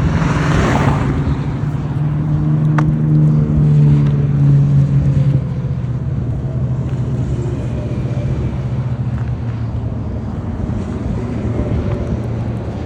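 Highway traffic passing: a rush of tyre and wind noise in the first second, then a heavy vehicle's low engine drone that swells to its loudest about four to five seconds in and drops away, leaving a steady traffic rumble.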